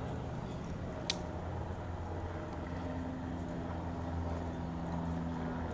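Steady low hum of idling vehicle engines, with a single sharp click about a second in.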